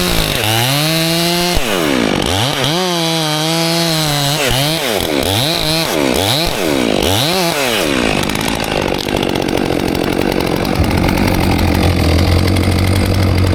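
Stihl 400c chainsaw cutting wood, its engine pitch dipping under load and climbing back again and again. For the last few seconds it runs rougher and steadier, without the rise and fall.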